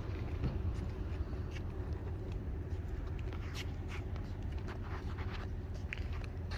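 Outdoor wind rumbling on the microphone, steady and low, with scattered light ticks and scuffs, like footsteps on a concrete walkway.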